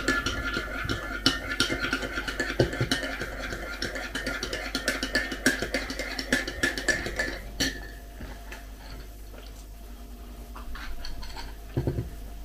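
Teaspoon stirring a kefir drink in a ceramic mug, scraping and clinking rapidly against the sides. The stirring stops with a sharp clink about seven and a half seconds in, and only faint small sounds follow.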